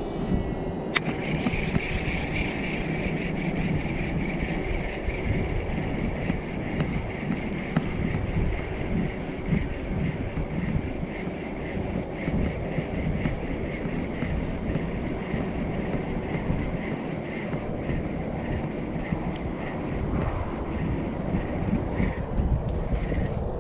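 Wind buffeting the microphone in a steady, fluctuating rumble, with a faint high-pitched hum behind it that fades out partway through.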